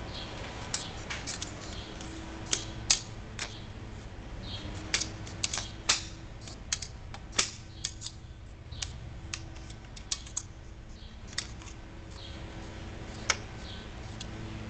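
Irregular sharp metallic clicks and taps from an aluminum folding camping table's legs, push-pin latches and clips being worked by hand, with a few louder clacks among them.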